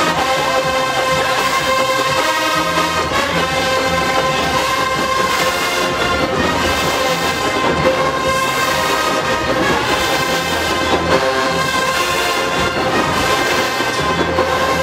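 Large marching band's brass section, sousaphones included, playing loudly: long held chords over a moving bass line.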